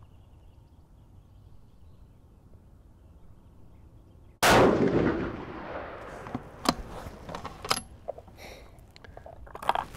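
A single 6mm Creedmoor bolt-action rifle shot (American Rifle Company Mausingfield) about four and a half seconds in, its report echoing and fading over more than a second. Sharp clicks of the bolt being worked and a light metallic ding follow in the last few seconds.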